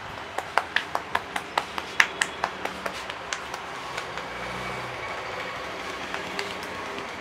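Barber's hands tapping rapidly on a head during a head massage: a quick run of sharp slaps, about five a second, starting about half a second in and stopping about three and a half seconds in. Steady street traffic noise runs underneath.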